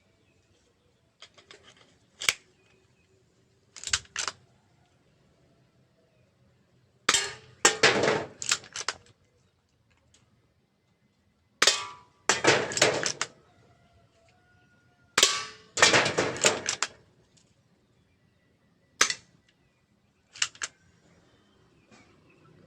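M&P 40 spring-powered airsoft pistol with a metal slide being cocked and fired, heard as sharp clacks: about seven groups, some single clacks and some quick runs of several, spaced a few seconds apart.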